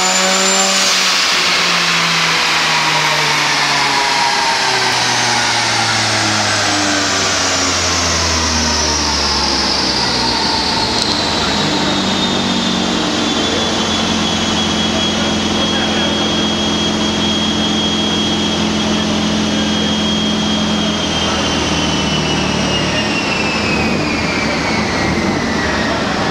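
Turbocharged car engine running in gear on a chassis dynamometer, its revs falling after a pull, holding steady for several seconds near the middle, then falling again near the end. A high whine falls and levels off along with the engine note.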